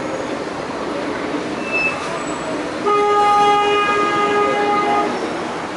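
A vehicle horn sounds one long steady note for about two seconds, starting about three seconds in, over the noise of passing street traffic.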